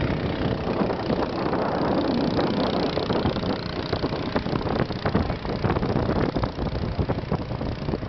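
Engine of a wooden longtail river boat running steadily under way, mixed with dense noise and irregular short knocks that come more often in the second half.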